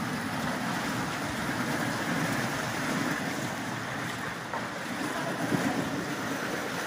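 Steady wash of the North Fork of the Virgin River flowing over its rocky bed.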